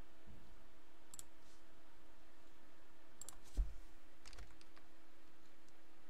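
A few light clicks at the computer in small clusters, with a dull thump about three and a half seconds in that is the loudest sound, over a steady faint hum.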